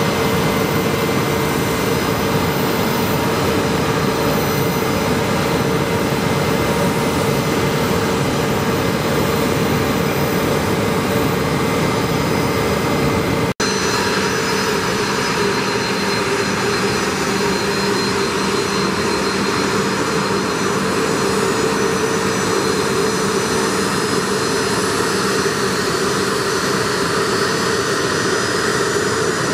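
Bombardier Challenger (CL60) business jet's twin rear-mounted turbofan engines running steadily while it taxis: a constant high whine over a broad rushing sound. The sound cuts out for an instant about halfway through, then carries on with a slightly different mix of tones.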